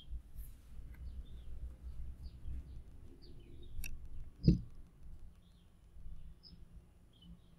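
Faint background sound: small birds chirping here and there over a low rumble, with a single dull thump about four and a half seconds in.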